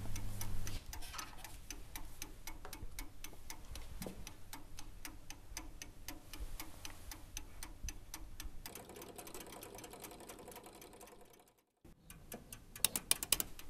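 Antique clockwork movement of a picture clock ticking with fast, even ticks. It breaks off briefly about eleven seconds in, then comes back as a run of louder, quicker clicks near the end.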